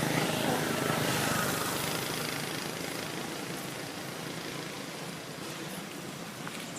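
Motor vehicle engine noise that fades away over the first few seconds, then holds at a lower steady level.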